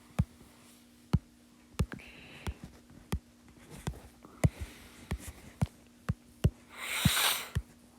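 Computer mouse clicking again and again at an uneven pace over a faint steady hum, with a brief louder rush of noise about seven seconds in.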